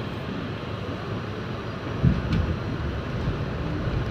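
New York City subway train running on the rails: a steady low rumble, with a loud clunk about two seconds in after which the rumble grows louder. A faint rising motor whine begins near the end.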